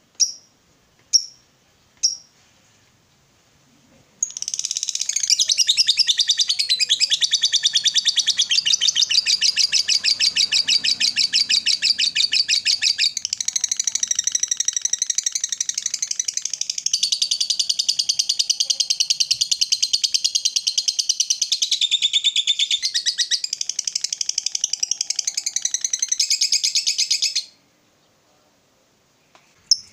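Lovebird giving a few sharp single chirps, then about four seconds in breaking into the long, rapid, unbroken chattering trill keepers call 'ngekek panjang', which runs for over twenty seconds and stops abruptly near the end.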